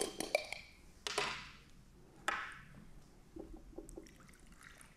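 Small cups and water containers knocking and clinking on a tabletop as they are handled: a few sharp taps in the first couple of seconds, each with a short ring-out, then fainter ticks.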